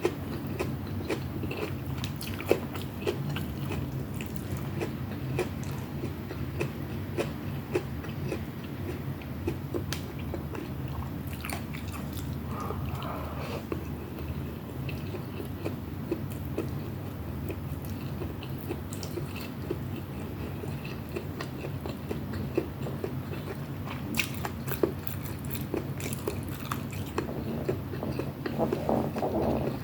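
Close-miked eating: a person chewing and biting, with many small wet clicks, over a steady low hum.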